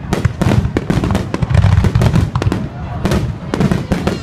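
Aerial fireworks in a finale barrage: a dense, rapid run of shell bursts, many sharp bangs a second, over a continuous low rumble.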